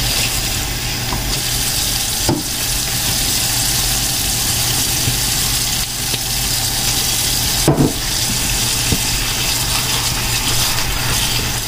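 Kitchen tap running steadily onto shredded cabbage in a stainless steel bowl, a hand turning the cabbage under the stream. Two brief knocks, about two seconds in and again near eight seconds.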